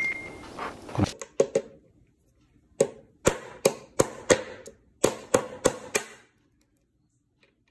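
Pliers working at the housing of a Mi Dual Driver in-ear earphone to break it open: a run of about a dozen sharp clicks and cracks in quick clusters, stopping about six seconds in.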